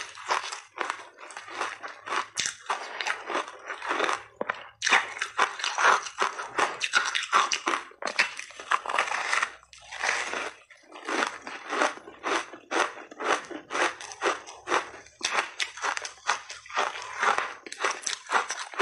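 Frozen mixed-berry layered ice being bitten and chewed close to the microphone: a rapid, irregular run of crisp cracking crunches as the ice breaks between the teeth.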